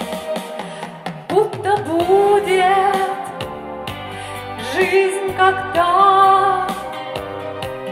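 A woman singing a pop song into a handheld microphone over instrumental accompaniment with a steady bass; her sung line comes in about a second in, and she holds notes with vibrato.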